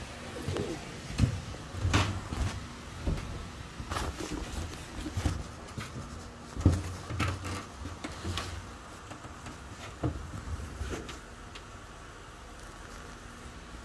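Irregular knocks and clunks, roughly one every second or so, over a low steady machinery hum in a ship's machinery space.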